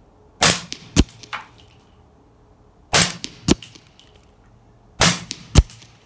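Suppressed 300 AAC Blackout AR pistol firing three shots about two and a half seconds apart. Each shot is followed about half a second later by a second, sharper crack.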